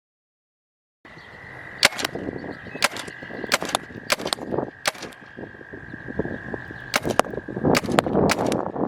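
Paintball gun firing single shots at an uneven pace, about one a second, some in quick pairs. Silent for the first second.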